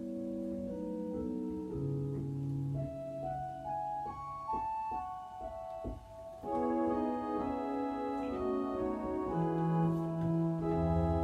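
Church organ playing slow, held chords. The music grows fuller about six and a half seconds in, and a deep bass pedal note enters near the end.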